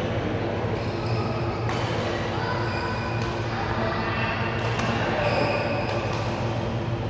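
Badminton shuttlecocks being struck with rackets on nearby courts: several sharp smacks, about 2, 3, 5 and 6 seconds in, over a steady low hum in a large hall with hard walls.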